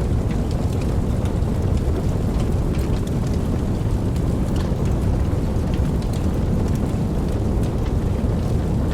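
Steady rain falling with a deep, even rumble, and scattered individual drops ticking over it.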